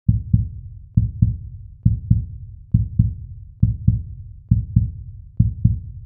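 Heartbeat sound effect: a steady lub-dub of paired low thumps, about seven beats, one roughly every 0.9 seconds.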